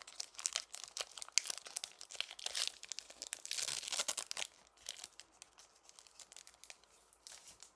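Foil wrapper of a Pokémon booster pack being torn and crinkled as a stubborn pack is forced open, a dense crackle busiest about halfway through and then thinning to scattered rustles and ticks.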